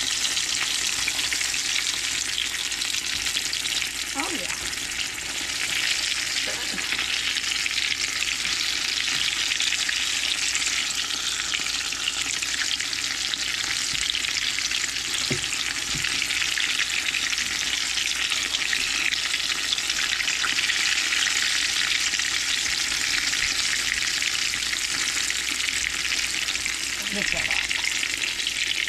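Cherry hand pies sizzling steadily as they deep-fry in vegetable oil in a cast-iron skillet.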